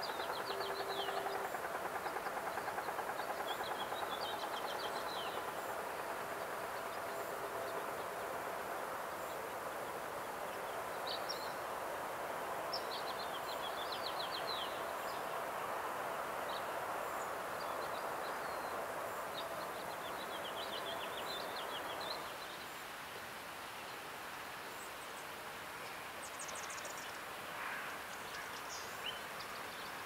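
A steady engine hum with a fast pulse, easing off about three quarters of the way through, while small birds chirp in short, buzzy trills again and again.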